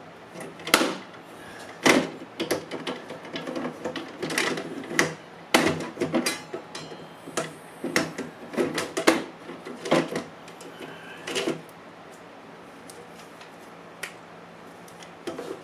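Kobalt rack-and-pinion rip fence being fitted onto a benchtop table saw: a long run of sharp knocks, clunks and rattles as its pins are slotted in and its lever worked, then a quieter stretch with a couple of single clicks near the end.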